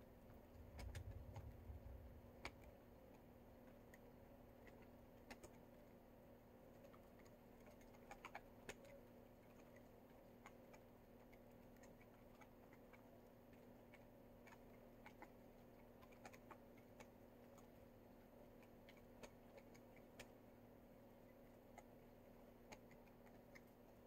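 Near silence: a faint steady hum with scattered soft ticks and clicks, and a brief low rumble about a second in.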